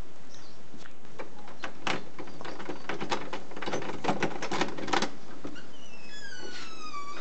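Key rattling and clicking in an old door lock, with a run of sharp metal clicks as it is worked and turned. Near the end the door swings open with a falling hinge creak.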